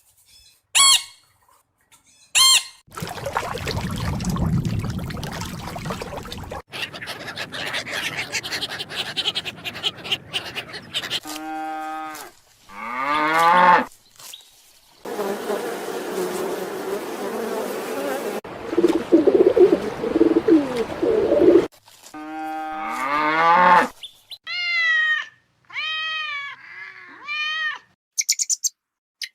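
A run of separate farm-animal calls, typical of cattle mooing: drawn-out calls whose pitch slides downward, heard twice, between long stretches of noisy, rustling sound, then four or five short arched calls and a couple of high, brief calls near the end.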